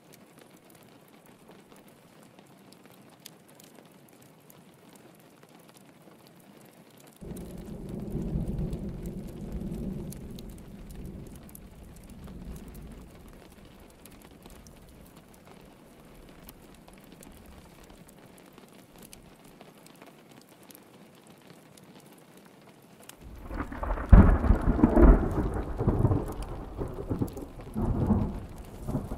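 Steady rain pattering on a window, with two rolls of thunder. A low rumble starts suddenly about a quarter of the way in and fades over several seconds. Near the end comes a louder peal with sharp cracks.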